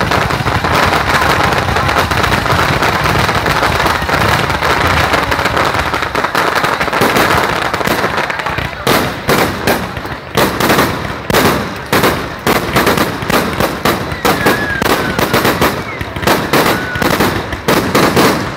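Aerial fireworks display: dense, continuous crackling of launches and bursts, breaking after about eight seconds into a rapid run of separate sharp bangs, several a second.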